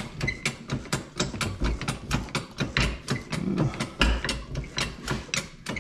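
Hydraulic shop press being worked, its jack clicking rapidly and fairly evenly as the ram lowers onto a new pinion bearing to press it onto the differential pinion gear, with a few low thumps.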